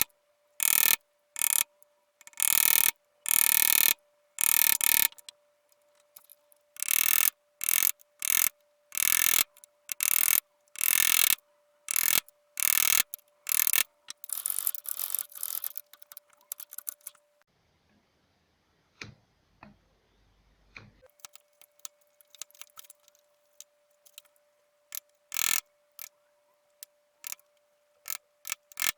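Rhythmic scraping strokes of a hand tool working wood, about one a second, each stroke short and sharp. The strokes stop about two-thirds of the way through, leaving only sparse light clicks and taps.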